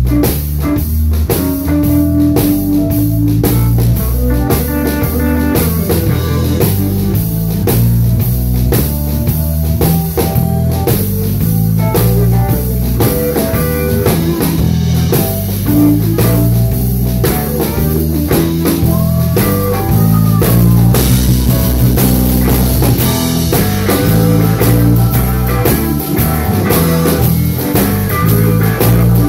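Live blues band playing: an electric bass line over a drum kit's steady beat, with electric guitar notes bent in pitch around two-thirds of the way in.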